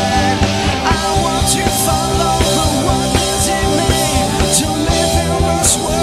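Live rock band playing loud and steady, with a male lead voice singing over drums and cymbal crashes every second or two.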